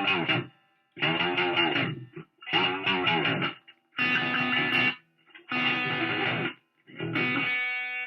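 Electric Stratocaster through a wah pedal and amp, played in six short bursts of about a second each with brief silences between. In the first few bursts the wah sweeps the tone up and down over quickly picked notes; the later ones are fuller sustained chords.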